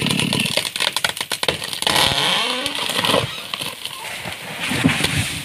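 Stihl chainsaw running in the felling cut for about half a second, then a rapid run of sharp cracks as the leaning trunk splits and gives way, followed by a loud rushing crash of the tree coming down through branches and leaves, tailing off into rustling and snapping twigs.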